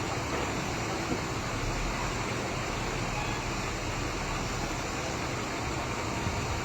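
A heavy machine's engine running at a steady pace, an unbroken mechanical drone with no distinct knocks or changes.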